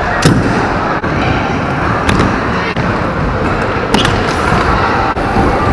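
Stunt scooter wheels rolling on the wooden ramps of an indoor skatepark, with sharp clacks of scooter decks and wheels striking the ramp three or four times.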